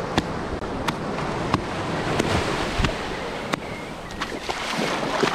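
Swim fins slapping and splashing in shallow water at a walking pace, a sharp slap about every two-thirds of a second, over the wash of small waves.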